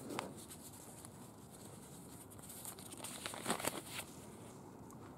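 Paper rustling and crinkling as an old instruction manual is handled, with scattered small clicks, loudest in a short burst of rustling about three and a half seconds in.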